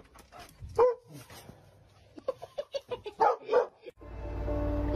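Dog giving short barks, about a second in and again a few times after three seconds, among scattered clicks and knocks. Near the end a steady low hum starts.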